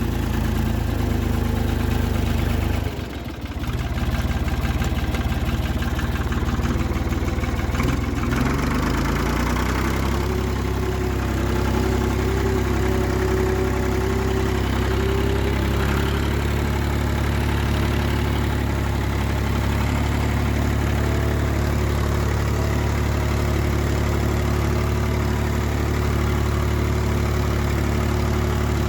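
Farm tractor engine running steadily. It dips briefly about three seconds in and changes pitch between about eight and ten seconds in, then settles.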